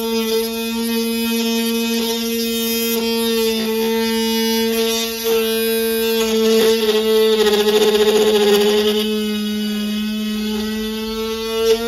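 Tamiya Sport-Tuned DC 380 motor of a mini drill press running with a steady whine. Around eight seconds in its pitch sags and a rough scraping noise joins as the bit is pressed into the board to engrave.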